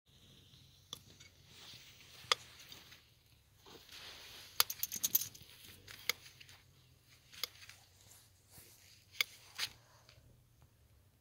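Hoof nippers cutting a horse's hoof wall: sharp snaps spaced a second or two apart, with a quick cluster of snips about five seconds in, and light scraping between cuts.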